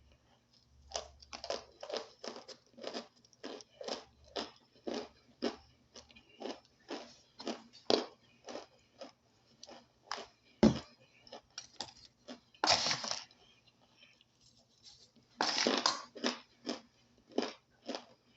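Toasted cornstarch chunks being chewed close to the microphone: a steady run of dry crunches, about two a second. Two longer, louder crunching stretches come in the second half.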